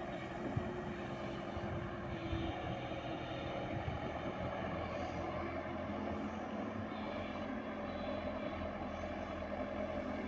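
JCB 120 excavator's diesel engine running steadily.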